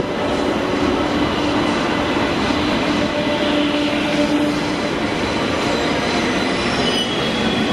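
Two-car light-rail train rolling past along the platform: a steady running rumble of steel wheels on rail with a low motor hum, and a thin high wheel squeal near the end.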